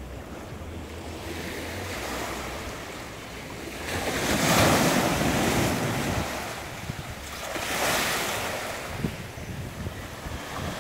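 Small waves washing up onto a sandy beach, swelling twice, loudest about halfway through, with wind rushing over the microphone.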